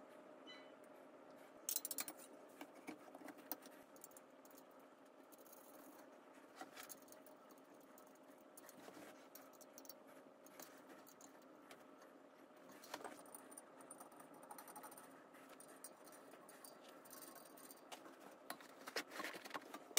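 Metal table-frame tubes and small screws clinking and rattling as the frame is handled and fitted together: scattered light clicks and knocks, the loudest about two seconds in. Near the end comes a denser stretch of rustling and knocks as the fabric storage basket is handled.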